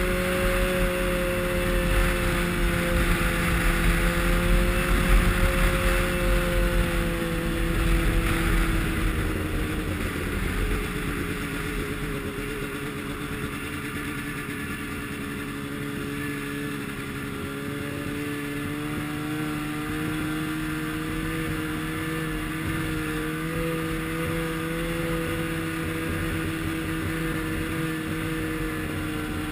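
Snowmobile engine running at a steady trail cruise, heard from the rider's seat, with a rushing hiss that is stronger for the first ten seconds or so. The engine note eases down about ten seconds in, then slowly climbs again.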